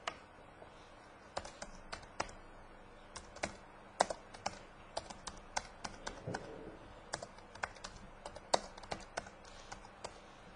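Typing on a computer keyboard: irregular key clicks, a few a second with short pauses between runs.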